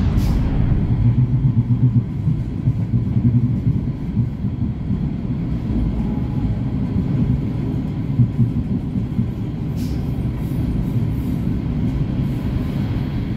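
Ride inside an ALn668 diesel railcar under way: a steady low rumble of the underfloor diesel engine and wheels on the rails.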